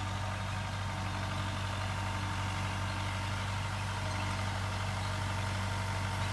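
A vehicle engine idling steadily, a low, even hum with no change in speed.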